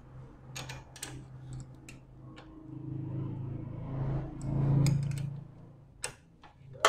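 Scattered light metallic clicks and taps of hands and tools at a Honda CG125's rocker tappet adjusting screw while the valve clearance is set with a feeler gauge, with a sharper click near the end. A steady low hum runs underneath.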